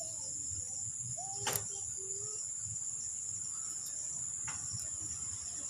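Steady high-pitched trilling of insects, typical of crickets, with a single sharp click about one and a half seconds in.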